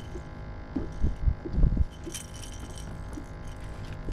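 A few dull thumps, with light metallic clinking a little after two seconds in, from a freshly caught catfish and terminal tackle being handled in the boat.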